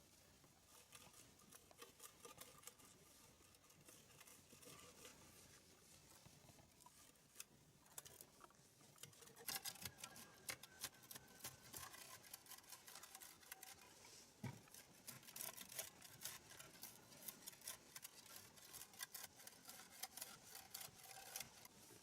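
Faint, irregular clicks and scratches that grow much busier about halfway through.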